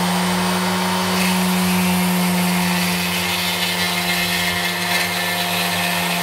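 Ferrex mini bench grinder's motor running at full speed, turning a grinding point in its flexible-shaft handpiece against a slab of slate. It gives a steady motor hum with a gritty grinding hiss over it, which grows stronger about a second in.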